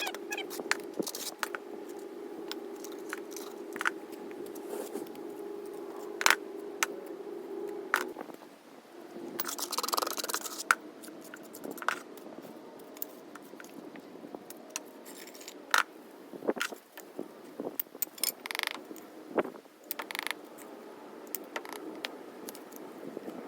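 Mason's trowel scraping mortar and clinking against brick: irregular scrapes and sharp taps throughout, over a steady hum that stops about eight seconds in.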